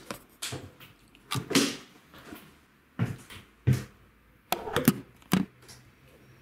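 Footsteps on a wooden floor: a run of about ten irregular thuds and knocks, some in quick pairs, with a quieter stretch in the middle.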